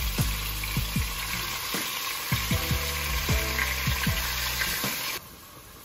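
Seasoned chicken pieces sizzling as they go into hot olive oil in a pot to brown, with the light knock of tongs against the pot. The sizzle cuts off abruptly about five seconds in.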